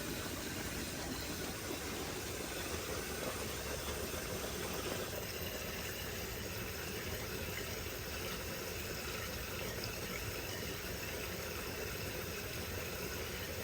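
Aquaponics tank's circulating pumps and aerated water inflow running: a steady, even rushing noise.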